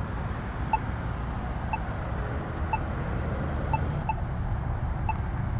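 Polara iNS accessible pedestrian signal push button giving its locator tone: short clicking ticks about once a second, over steady traffic noise. About four seconds in, a second ticking, slightly out of step, joins it.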